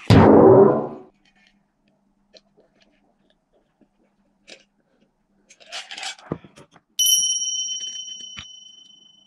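A loud hit that fades out over about a second, then a few faint clicks and a brief clatter, then a single bell-like ding about seven seconds in that rings out slowly for about two seconds.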